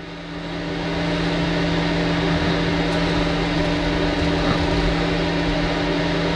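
Fan-forced electric space heater running under load: a steady hum with a rush of air that rises in level over the first second, then holds.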